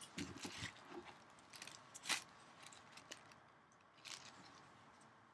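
Faint scattered clicks and rustles of a trading card being handled, with a sharper click about two seconds in and another about four seconds in.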